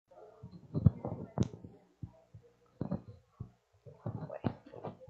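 Indistinct murmur of people talking among themselves in small groups, with no clear words, over a steady low electrical hum. A couple of sharp knocks come about a second in.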